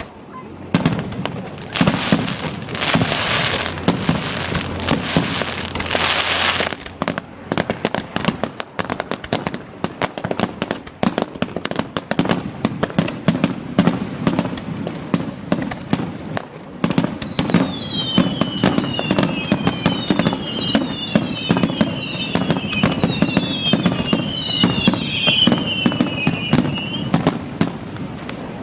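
Finale barrage of aerial fireworks: rapid, dense bangs of bursting shells, with a few seconds of hissing crackle early on. Over the second half, many shrill whistles fall in pitch over the bangs.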